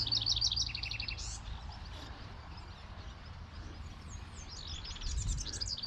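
Small songbird singing: a quick, high trilled phrase in the first second or so, then the same song again near the end, over a steady low background rumble.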